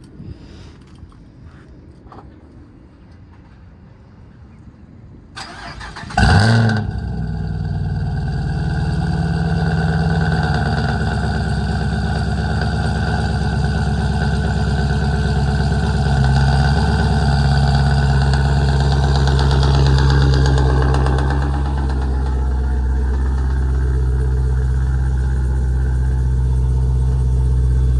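Dodge Durango SRT Hellcat's supercharged 6.2-litre V8 cold-starting through a custom exhaust. It cranks briefly a little over five seconds in and catches with a loud flare about six seconds in, then settles into a steady, loud idle.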